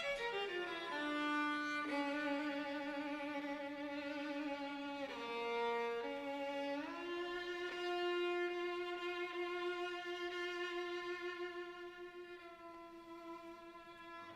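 Solo bowed string instrument playing a slow melody with vibrato. A falling phrase leads into held notes, and near the end a long sustained note fades away.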